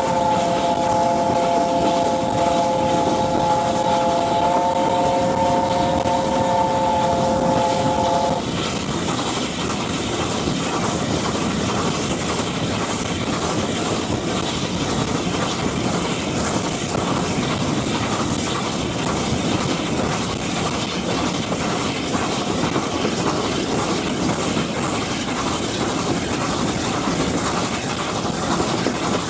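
LNER A4 steam locomotive's three-note chime whistle, sounding one long blast of about eight seconds before it cuts off, over the steady rush and clatter of the train running at speed.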